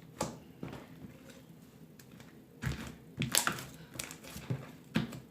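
Homemade hair-gel slime being squeezed and poked by hand close to the microphone: irregular sticky clicks and crackles, busiest in the middle and again near the end.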